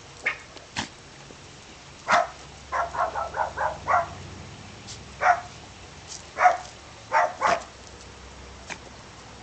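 Small dog barking in short, sharp yaps, with a quick run of five or six yaps about three seconds in and single ones scattered around it.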